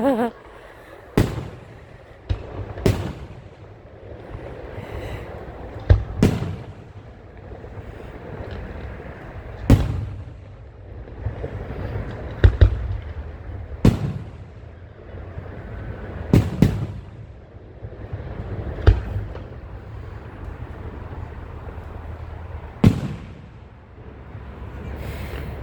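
Aerial fireworks bursting: about a dozen sharp bangs at irregular intervals, some in quick pairs, each followed by a rolling echo, over a steady low rumble.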